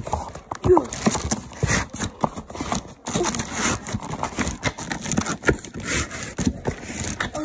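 Cardboard packaging and plastic wrapping being handled, with irregular crinkling, rustling and small knocks as the helmet is worked out of its box.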